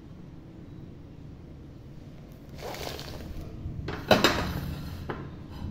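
Handling noise over a faint low hum: a brief rustle about two and a half seconds in, then a sharp knock a little after four seconds, followed by a second of rustling and a lighter click.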